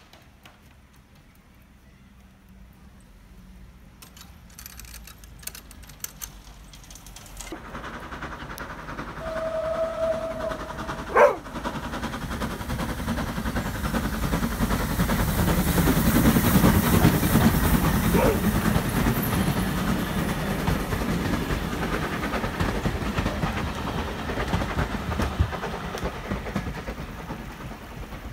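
Steam tank locomotive, the 1899 Taff Vale Railway O2, hauling coaches toward and past the listener. The rumble swells to a peak about sixteen seconds in and then fades slowly as the train goes away. A short whistle blast is held for about two seconds near nine seconds in, followed by a single sharp crack.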